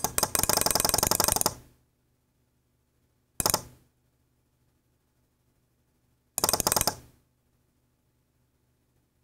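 Relay modules clicking rapidly in three bursts: the first runs about a second and a half, a shorter one comes about three and a half seconds in, and another a little after six seconds.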